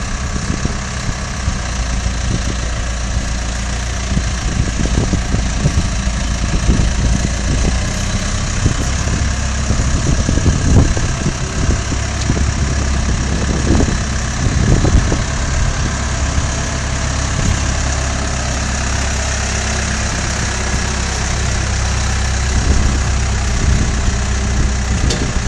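Diesel engine of a Case backhoe loader running steadily at low revs while it carries a trench shoring box slung from its front bucket, the engine working a little harder in the middle.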